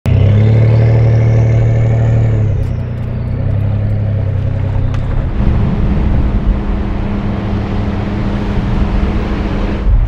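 Pickup truck driving on a dirt road: a steady low engine hum with road and tyre noise, the sound shifting about three seconds in and again about five seconds in.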